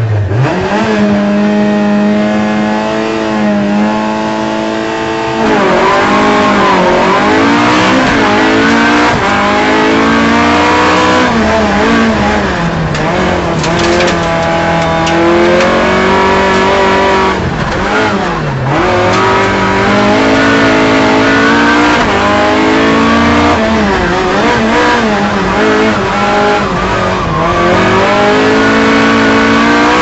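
Rear-wheel-drive Ford Escort rally car's engine, heard from inside the cabin under hard driving. It holds steady revs for the first few seconds, then revs rise and fall repeatedly as the driver accelerates and lifts off.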